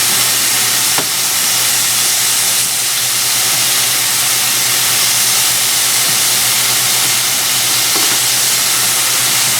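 Thin slices of venison tenderloin sizzling steadily as they sear in hot olive oil in a pan.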